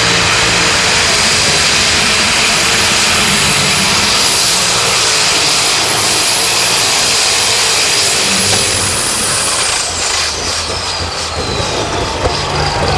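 Pulling tractor's engine running flat out under load, with a loud high steady whine over the engine noise. About ten seconds in, the whine falls steadily in pitch as the engine winds down at the end of the run.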